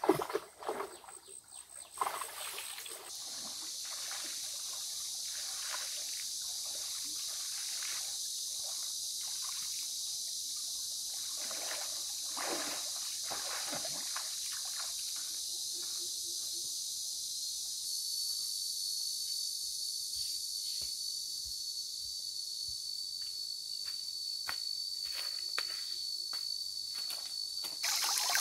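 Insects buzzing steadily in a high-pitched chorus, with a thin single whine joining about two-thirds of the way in. Scattered soft knocks and taps sound underneath.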